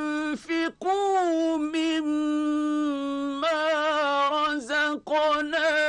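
A man's voice reciting the Quran in the melodic mujawwad style, holding long high notes with wavering ornamented turns and a few brief breaks.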